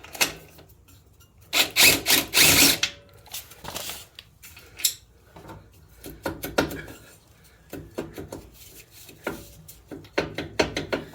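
Tools at work on a scooter's exhaust mounting bolts: a loud burst of tool noise about two seconds in, then scattered metallic clicks and clanks of wrench and bolts being handled.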